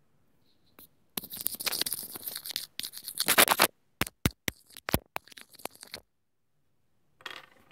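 Pencil scraping and scratching directly against a wired earphone's inline microphone for about two and a half seconds, then a quick run of sharp clicks as it taps the microphone.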